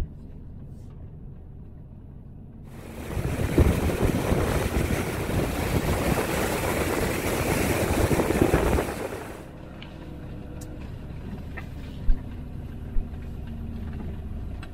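Surf breaking and washing onto a sandy beach, loud and steady, with wind buffeting the microphone, for about seven seconds from a few seconds in; before and after it, the low rumble of a motorhome driving.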